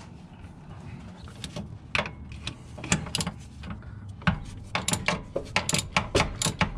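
Hand tools clicking and scraping irregularly against metal, sparse at first and coming thick and fast in the second half, as grime is cleaned off the VW transaxle and its parts.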